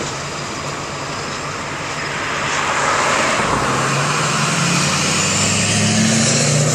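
A pickup truck's engine and tyres approaching on the road, growing louder through the second half and drawing level near the end, over a steady background of outdoor engine noise.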